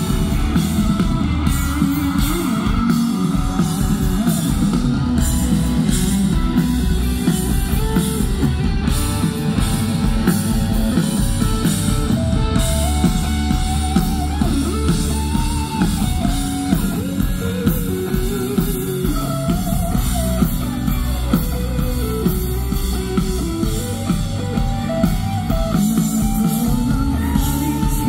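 Live rock band performing: a lead vocalist sings over electric guitar and a drum kit.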